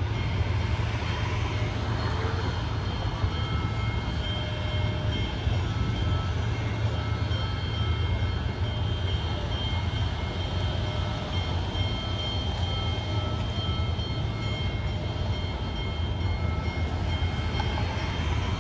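A railroad locomotive running steadily: a constant low rumble with several steady whining tones over it.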